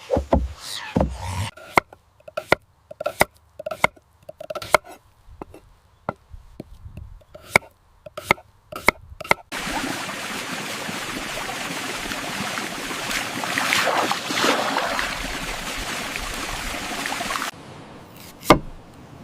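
A knife chopping on a wooden board: a run of separate, sharp chopping strokes at an uneven pace. About halfway through, a steady hiss takes over and then cuts off suddenly, and a single knock is heard near the end.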